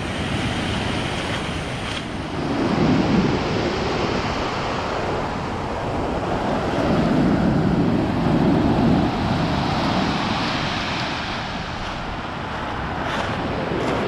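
Rough surf breaking on a pebble beach, with waves crashing in and foaming up the shore. It swells twice, about three seconds in and again around eight seconds.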